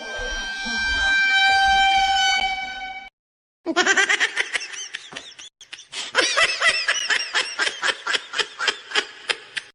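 Two comedic meme sound effects: a horn-like blast of several steady tones held for about three seconds, then, after a short gap, a quick run of squeaky, chattering pitched pulses at about four a second.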